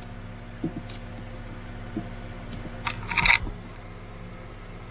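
Pliers working a small strip of peel-and-stick stainless steel tile: a few scattered clicks, then a short cluster of crackling clicks a little past the middle, over a steady low hum.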